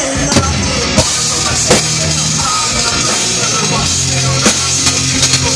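Rock band playing live and loud: a drum kit with sharp hits and cymbals over electric guitars and bass.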